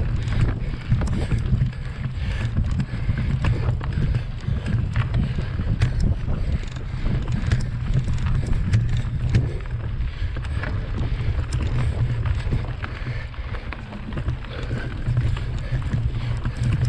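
Wind buffeting the microphone during a mountain-bike ride, a steady low rumble, with frequent rattles and knocks from the bike jolting over rough trail.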